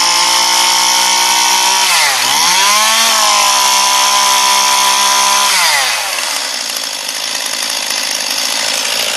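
Stihl MS 211 chainsaw's two-stroke engine revved up and held at full throttle, dipping briefly about two seconds in and revving up again, then dropping back to idle about six seconds in. It is run at speed to check that the chain oiler is throwing oil off the bar.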